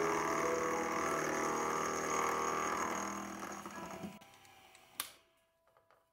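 Small benchtop milling machine running, its spindle motor and end mill cutting metal with a steady whine, fading out about four seconds in. A single sharp click follows about a second later.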